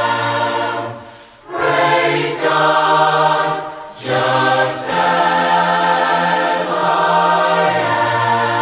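Choir singing a hymn a cappella in long held chords, with short breaks between phrases about one and a half and four seconds in.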